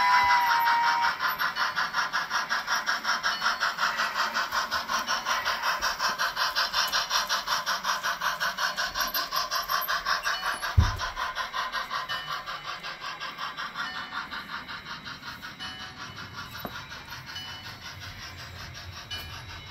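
Sound system of an On30 model steam locomotive: a two-tone steam whistle ends about a second in, then steady rhythmic chuffing at about four chuffs a second, slowly fading as the engine runs away. A single dull thump sounds near the middle.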